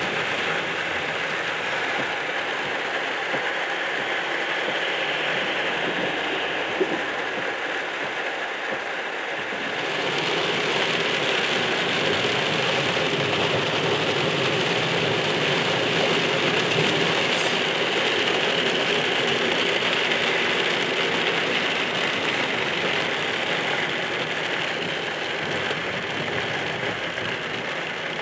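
Steady noise of a car driving on a wet, mud-covered road, heard from inside the cabin: tyre hiss and spray with rain on the windshield. It grows louder about ten seconds in.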